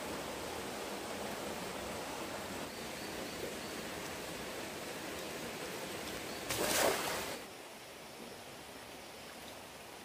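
Steady rushing of a flowing forest stream. About two-thirds of the way in comes a brief loud noise, just under a second long, after which the water sound is quieter.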